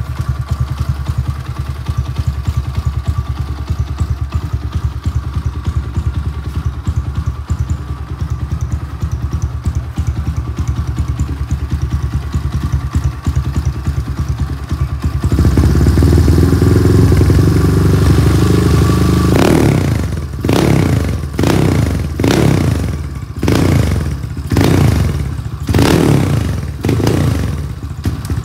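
Custom motorcycle engine running through an aftermarket carbon-look muffler: it idles steadily, then about halfway through it is revved and held high for a few seconds, followed by a string of about seven short throttle blips, each falling back toward idle.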